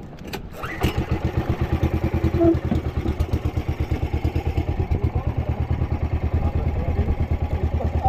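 A fishing boat's engine starting up about a second in, then running with a fast, even beat.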